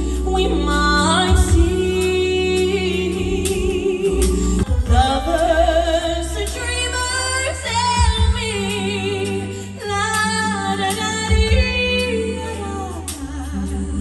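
A song with a woman singing the lead, her held notes wavering with vibrato, over a sustained bass accompaniment.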